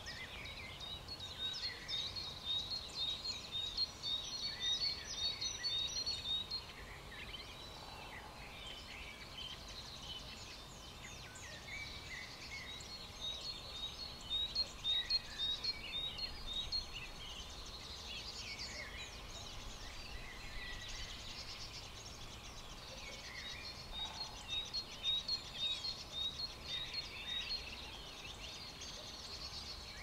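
Dawn chorus of many songbirds singing over one another in spring woodland. One bird repeats a rapid run of identical high notes for several seconds, three times.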